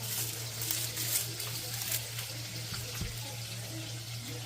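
Bacon sizzling in a cast-iron skillet: a steady frying hiss with quick crackles and pops.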